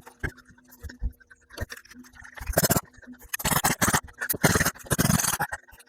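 Poulan 33 cc chainsaw being pull-started: several quick yanks of the recoil starter cord, each a short rasping whirr, in the second half.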